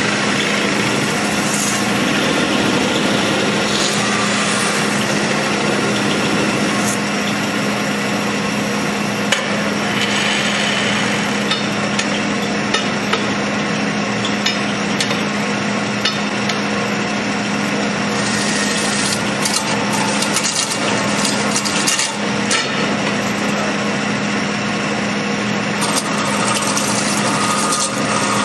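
Metal-spinning lathe running with a steady hum while a hand-held spinning bar rubs and scrapes against the rotating sheet-metal dome, with scattered sharp clicks.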